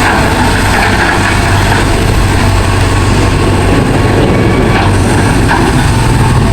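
An engine running steadily, a low hum under a rough, noisy rumble.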